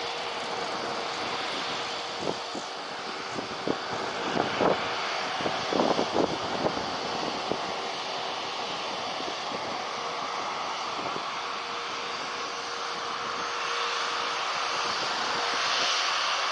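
Jet airliner engines running with a steady rushing noise and a faint held tone. A high whine builds in the last few seconds. A handful of short, sharp sounds stand out around the middle.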